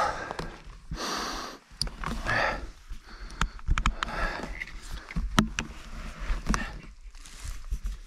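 Mountain bike rolling over a forest floor of dry fallen leaves: the tyres crunch and rustle through the leaves, with repeated sharp knocks and rattles from the bike over bumps, over a low rumble.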